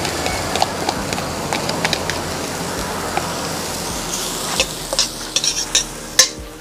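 Chopped seasoning sizzling in melting butter in a metal pan as a metal spoon stirs and scrapes it round. Sharp clinks of the spoon against the pan come thick in the last two seconds, the loudest just before the end.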